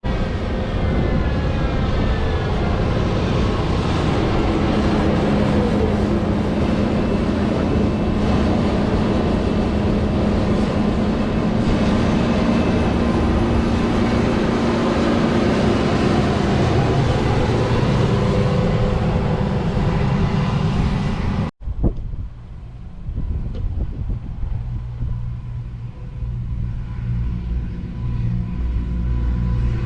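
Heavy farm machinery engines running as the machines travel along a road, a steady loud drone with some shifts in pitch. About two-thirds through it cuts abruptly to a quieter, lower engine hum.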